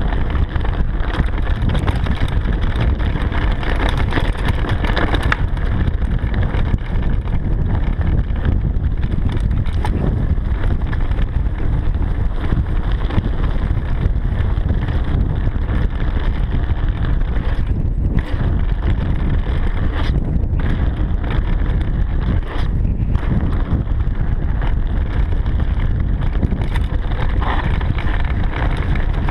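Mountain bike descending a dirt trail: a steady rush of wind buffeting the camera's microphone, mixed with the tyres rumbling over dirt and leaves and scattered short clicks and rattles from the bike.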